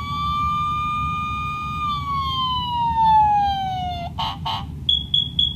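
Toy fire truck's electronic siren sounding one long wail that rises, holds and then slowly falls before cutting off. About four seconds in come two short buzzy blasts, then three quick high beeps.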